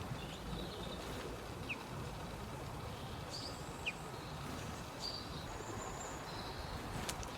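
Songbirds giving short high chirps and brief whistled notes, scattered through the middle, over a steady low background rumble.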